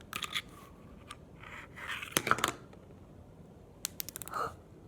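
Old beaded slime, gone bad, being squished and pulled apart in the hands: sticky crackling with sharp popping clicks in a few short clusters.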